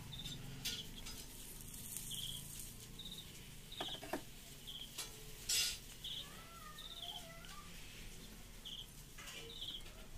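Birds chirping in the background, short high chirps repeating throughout with some warbling notes past the middle, over a few light clicks and taps from bench work.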